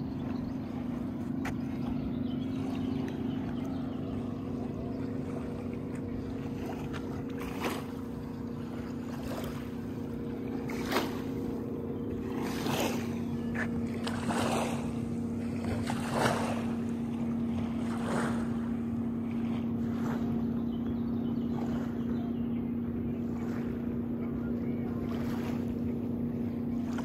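A motorboat engine runs at a steady pitch, with a short splash or knock roughly every two seconds from about a quarter of the way in.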